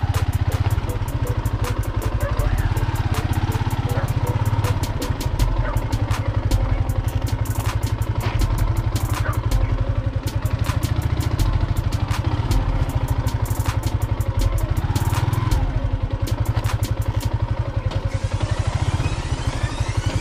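Yamaha Sniper 150 underbone motorcycle, a single-cylinder four-stroke, running at low speed over a rough, rocky dirt path, with a steady low rumble and frequent rattling knocks as the bike jolts over the bumps.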